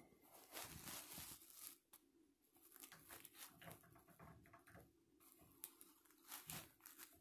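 Faint, irregular rustling and light scraping as hands work the stem of an old Moen pull-out shower valve at its chrome trim plate.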